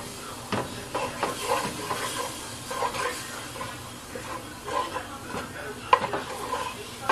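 Garlic sizzling in a pot while a wooden spoon stirs and scrapes it, with irregular knocks of the spoon against the pot, the sharpest about six seconds in.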